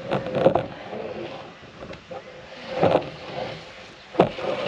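Long wooden planks knocking against the boat's wooden hull as they are handed over the side: a few heavy knocks, one just after the start, one about three seconds in and one near the end, over a light wind hiss on the microphone.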